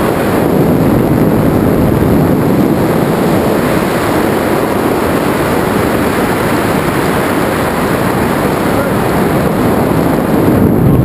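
Wind rushing over the camera's microphone as a tandem pair descends under an open parachute canopy: a loud, steady rush that grows a little louder near the end.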